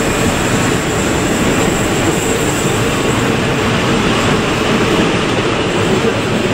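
Heritage steel passenger carriages rolling past on a curve, their wheels running steadily on the rails, with a thin high wheel squeal that fades out about halfway through.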